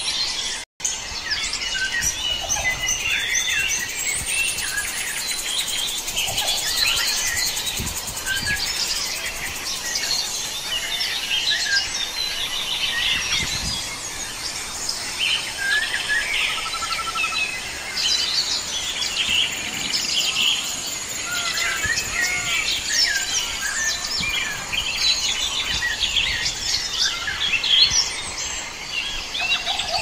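A chorus of many wild forest birds singing and calling at once: dense, overlapping chirps, trills and whistles. The sound drops out for an instant about a second in.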